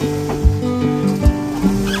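Background music with a steady beat and held notes that change pitch in steps.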